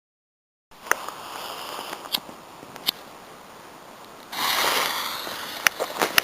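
Small firework catching light: scattered clicks, then a sudden hiss about four seconds in that fades over a second or so, followed by a lower hiss with quick crackling clicks.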